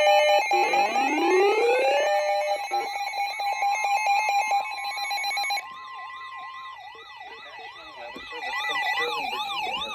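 Electronic siren tones. Two rising wails climb and hold over a pulsing steady tone, then about five and a half seconds in the sound changes to a fast up-and-down warble, about two to three sweeps a second.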